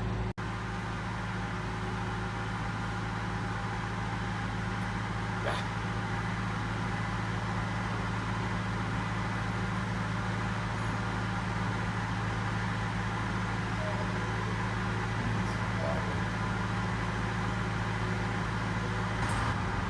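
Steady engine drone with a low hum, running evenly throughout, with a few faint clicks over it.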